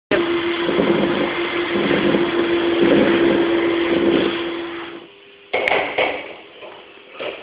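Lathe running with a steady hum and a surging cutting noise, which fades and stops about five seconds in, followed by two sharp metallic clanks a second and a half apart.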